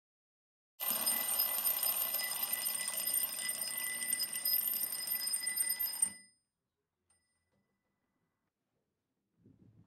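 Twin-bell alarm clock ringing, starting suddenly about a second in and cutting off abruptly about six seconds in.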